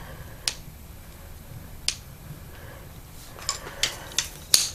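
Sharp clicks and clinks of metal hose clamps and steel transmission cooler lines being handled and knocked together: one about half a second in, another near two seconds, then four in quick succession near the end, the last of them the loudest.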